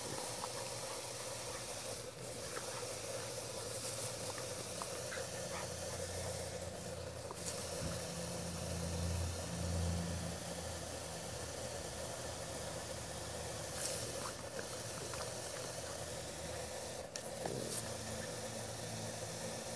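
Lawn sprinkler spraying water with a steady hiss, with faint scattered ticks. A low drone swells and fades around the middle.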